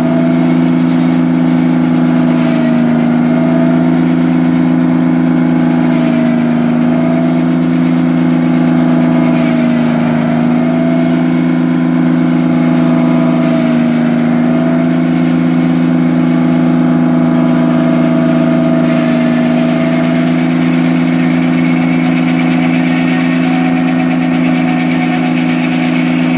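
Sawmill's engine and saw running steadily through a cut in a red oak log, a loud even drone whose pitch dips briefly and recovers every few seconds as the blade takes load.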